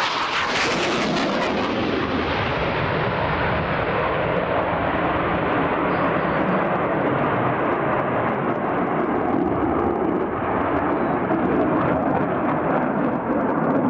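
F/A-18 Hornet jet fighter's engines in flight: a steady, loud rushing jet noise. Its high hiss fades over the first few seconds and then holds.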